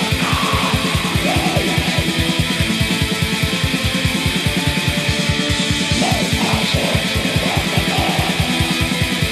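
Raw black metal: a dense wall of distorted electric guitar over rapid, evenly spaced kick-drum beats, at about six or seven a second.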